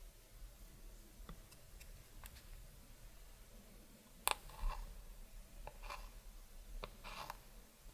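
Quiet hand-handling of clear slime and makeup: faint scattered clicks, a sharp click about four seconds in, then a few short crackly squelches.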